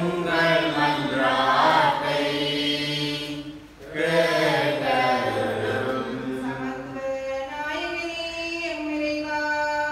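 Choir and congregation singing a short chanted response in Tamil, the sung reply to the spoken intentions of the prayers of the faithful. It comes in two phrases with a brief break a little under four seconds in, over a keyboard holding low notes for the first part.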